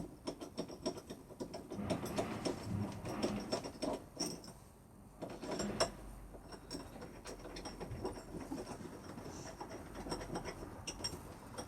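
Irregular small clicks and scrapes of a hand screwdriver working screws out of an old rim lock's back plate, with the metal lock being handled.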